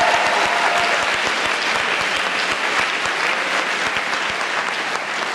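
Audience applauding: dense, steady clapping that slowly dies down.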